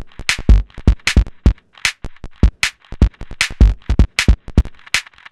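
Electronic drum-machine beat: deep kick thuds and sharp, snappy higher hits in a quick rhythm, with no melody yet.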